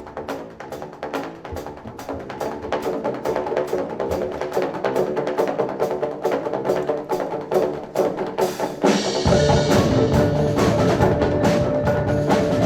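Percussion-driven drum music: a fast run of sharp strikes over pitched notes. About three and a half seconds before the end it turns suddenly louder and fuller, with heavy bass and a held note.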